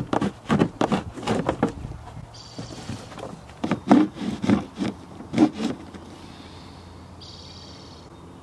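Hand saw cutting through a plastic car bumper, rasping back-and-forth strokes about two to three a second, in two runs with a pause between them; the sawing stops about two-thirds of the way through. A short, thin, high buzz comes twice.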